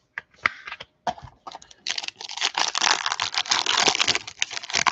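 Foil wrapper of a trading-card pack crinkling as it is handled and opened: a few scattered clicks at first, then dense rustling from about two seconds in.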